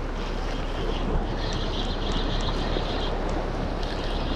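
Wind buffeting the microphone over waves washing against the rocks, with a spinning reel whirring as line is wound in, in two stretches with a short pause between them.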